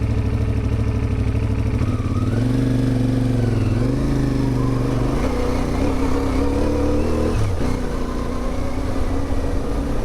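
CFMOTO 450MT's parallel-twin engine running under way, its pitch rising about two seconds in and dropping briefly about three-quarters of the way through as the throttle changes.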